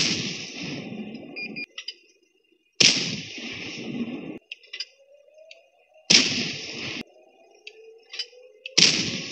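Tank cannon shots from a mobile tank game: four sudden loud blasts about three seconds apart, each dying away over a second or so, with faint game sounds in between.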